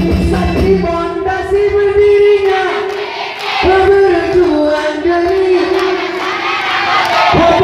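Many voices singing a sholawat chorus in unison through the PA, holding long notes, over a drum beat.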